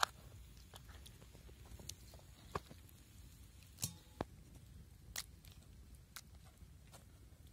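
A few scattered soft knocks and taps from a knife cutting raw fish on a plastic cutting board and fish pieces being put into a stainless-steel colander, one of them with a short metallic ring.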